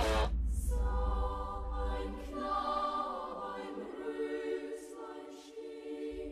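A choir singing slow, held chords like a church chant, fading away toward the end.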